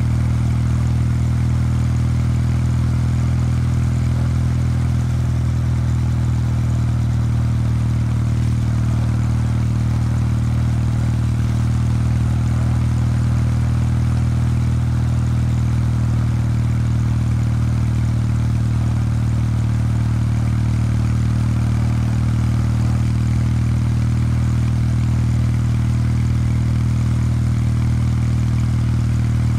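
Kawasaki W800 Street's air-cooled 773 cc parallel-twin engine and stock exhaust running at a steady, unchanging engine speed, with no revving or gear changes.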